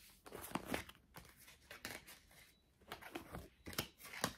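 A deck of tarot cards being shuffled by hand: a soft run of short card slaps and rustles at irregular intervals.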